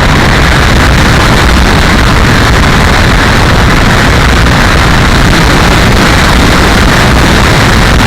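Loud, steady rushing noise with an uneven low rumble, typical of wind buffeting the microphone.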